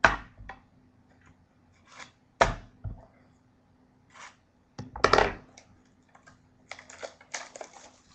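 Handling of a trading-card box's tins and packaging: three sharp clacks of hard items knocked or set down, a couple of seconds apart, then a rustle and scrape of packaging near the end.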